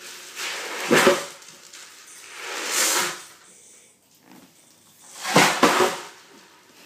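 An ocean drum tipped and tilted by foot, its beads rushing across the drumhead in three swishes: about a second in, near three seconds, and at about five and a half seconds, the first and last the loudest.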